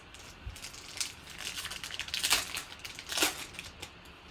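Trading-card pack wrapper being torn open and crinkled by hand, in a few rustling bursts with the loudest two past the middle.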